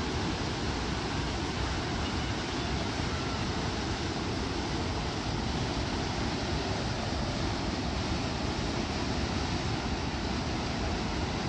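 Steady rush of water pouring over Shoshone Falls on the Snake River, an even noise with no breaks.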